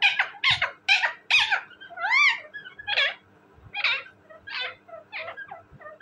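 Indian ringneck parakeet giving a rapid series of short, shrill calls. About two seconds in comes one longer call that rises and falls in pitch, and the calls then come further apart and grow softer.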